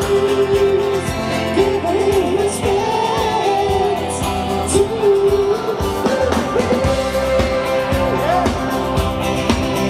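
Live band music: strummed acoustic guitar and band accompaniment under a melody line that slides between notes and holds them, with no words.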